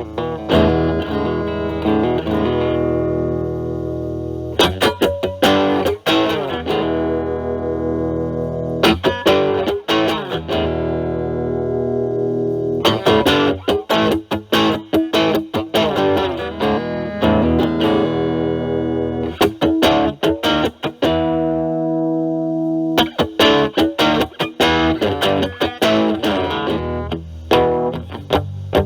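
Fender Stratocaster with single-coil pickups played through a Metal Pedals Rawhide overdrive pedal set to low gain (3) into a Marshall Valvestate amp's clean channel: lightly driven electric guitar chords and single-note phrases, some chords left to ring out and fade.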